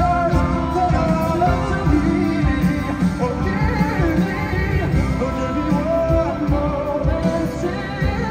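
A male singer singing live into a microphone over band accompaniment, heard through the concert's sound system.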